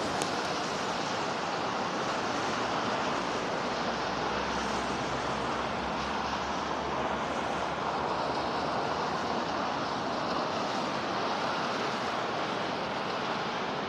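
Steady street traffic noise at a busy intersection: a continuous even rush of passing vehicles with no distinct events.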